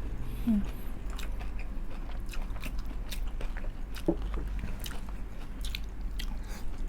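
Close-up crunching and chewing of crispy fried chicken skin, irregular crisp crackles as it is bitten and chewed.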